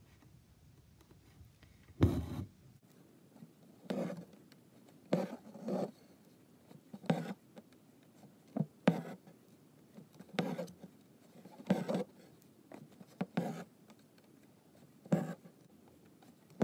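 Embroidery thread being pulled through taut cotton fabric in a hoop: short rasping draws of needle and thread, repeated about every second as the stitches are worked.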